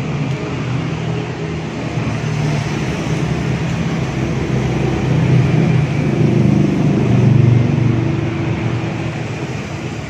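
Low, continuous mechanical hum and rumble that swells louder a little past the middle and then eases back.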